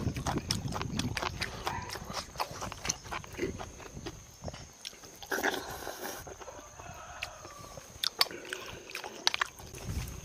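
A person eating: chewing and mouth sounds with many short sharp clicks scattered throughout, and a brief noisy slurp-like burst about halfway through.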